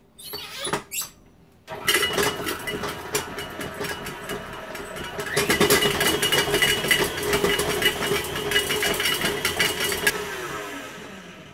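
A KitchenAid stand mixer starts up with its wire whisk beating two sticks of still-hard butter in a steel bowl: a steady motor whine with rapid clattering of the whisk. It gets louder about five seconds in, then is switched off near the end and winds down. A few knocks come before it starts.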